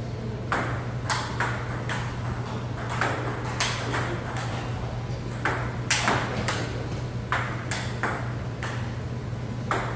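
Table tennis ball clicking off rubber paddles and the table during rallies: a string of sharp ticks about every half second, over a steady low hum.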